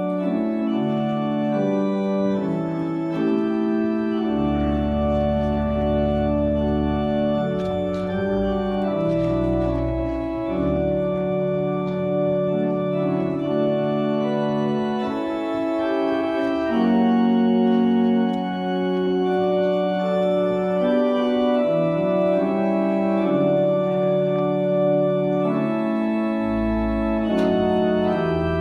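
Organ postlude: slow, sustained chords over held deep pedal notes that change every second or few, with no speech.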